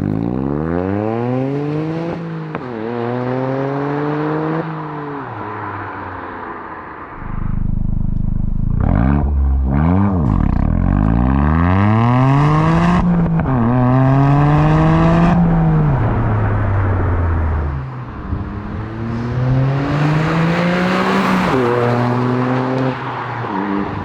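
Toyota GR Yaris 1.6-litre turbocharged three-cylinder engine through a Milltek GPF-back exhaust, accelerating hard through the gears. The exhaust note rises in pitch and drops back at each shift, several times, and is loudest in a long pull through the middle.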